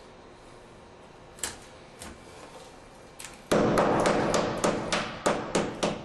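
Hammer and chisel chipping cement and tile from a shower wall: a few single light taps, then from about three and a half seconds in a run of loud strikes, about three a second, over a continuous rough scraping noise.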